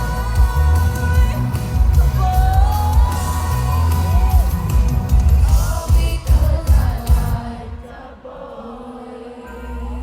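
Live pop music with a singer over heavy bass, heard from inside a concert crowd with some cheering. About three-quarters of the way through the music drops away to a quieter, muffled stretch, then comes back near the end.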